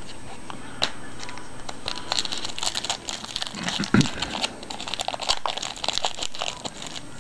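Trading-card pack wrapper crinkling and tearing as a pack is opened and the cards handled, in dense crackly bursts, with a dull thump about four seconds in.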